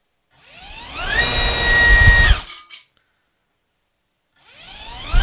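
Hyperlite 2206 2450kv brushless FPV racing motor spinning a 5-inch four-blade prop on a thrust test stand. It spins up from rest with a rising whine, holds at full throttle for about a second and cuts off abruptly. Near the end it spins up again.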